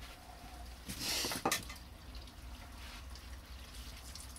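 Leftover water being tipped out in a short splash about a second in, ending in a sharp knock.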